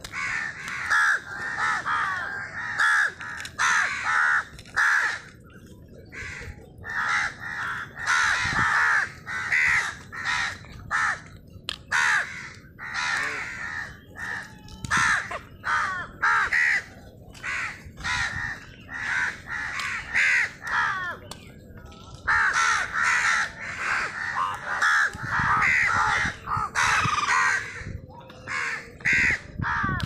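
A flock of crows cawing, many harsh calls overlapping almost without pause, with a couple of brief lulls.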